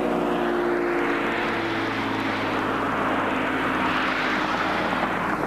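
A passing vehicle: a rushing noise that swells to a peak about four seconds in, then fades away.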